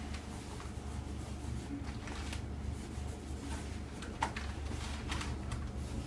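Quiet room tone with a steady low hum and a few faint, short clicks and rustles.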